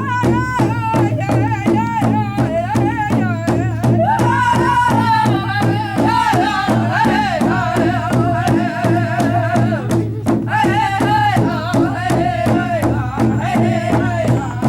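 Music: a voice singing a wavering melody over a steady, fast drum beat, with a short break in the singing about ten seconds in.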